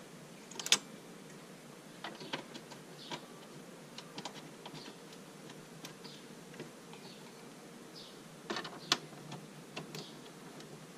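Tools and parts being handled, giving scattered light clicks and clinks over a faint steady hiss, with a louder cluster of clicks about eight and a half to nine seconds in.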